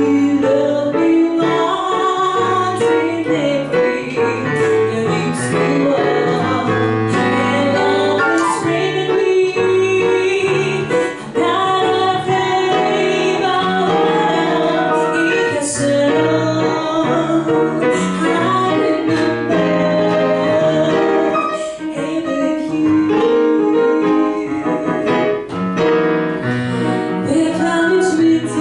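A woman singing a jazz standard, accompanied on a digital piano.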